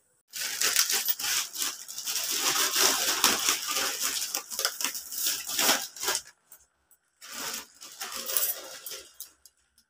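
Metal clattering and scraping as a steel pot is handled on a gas stove's grate, in a long stretch of clicks and rattles, then a pause and a shorter burst near the end.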